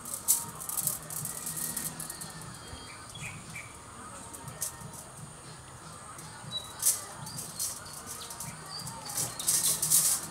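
Rustling and light clicking of a coil of aluminium bonsai training wire being handled and pulled off, in bursts about half a second in, around seven seconds in and strongest near the end. Birds chirp briefly in the background.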